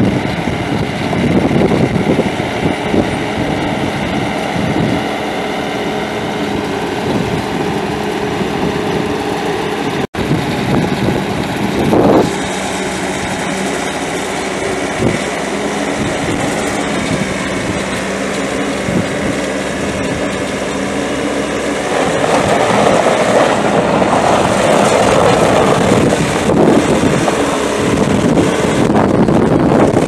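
Bobcat S570 skid steer's 2.4-litre four-cylinder diesel engine running steadily. The sound breaks off for an instant about a third of the way in, and grows louder and rougher in the last third.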